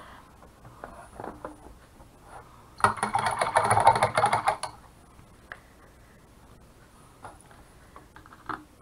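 Handling noise on a paper-covered work surface: a rustling, clattering burst about two seconds long, starting a few seconds in, as the painted rock is set down, with a few small taps before and after.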